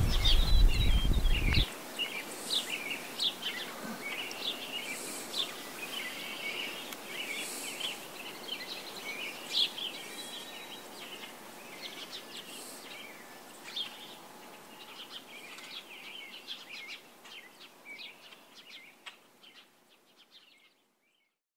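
Songbirds chirping and singing, many short calls and trills overlapping, dying away to silence shortly before the end. A loud low rumble covers the first second and a half.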